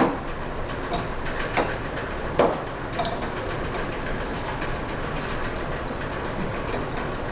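Wrench clicking on metal as the jam nut on a new outer tie rod end is tightened: a few sharp clicks in the first three seconds over steady background noise.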